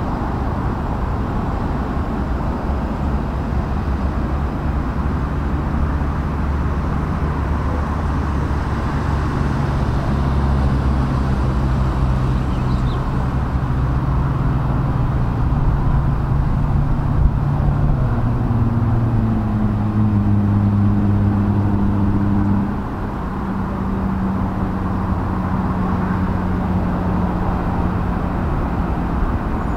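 Steady outdoor background noise with a low engine drone whose pitch steps to a new level a little past halfway and again soon after, with a brief drop in loudness.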